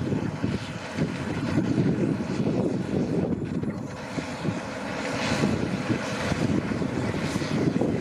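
Case International Axial-Flow 1660 combine harvester working under load in barley: its diesel engine and threshing machinery give a steady heavy drone that grows louder over the second half.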